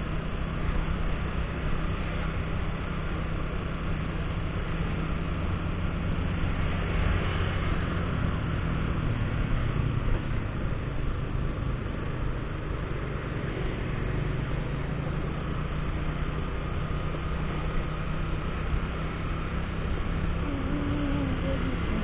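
Motorcycle engine running steadily while riding along a street, under an even rush of wind and road noise.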